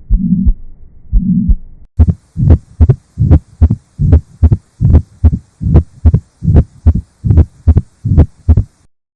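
Heart sounds heard through a stethoscope at the cardiac apex. For the first two seconds the beats carry a low hum about once a second, a murmur; then a steady lub-dub of paired first and second heart sounds takes over and stops shortly before the end.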